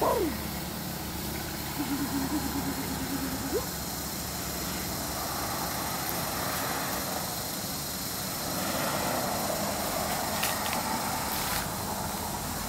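Small motor scooter engine running steadily, with a broad rushing noise that swells in the second half.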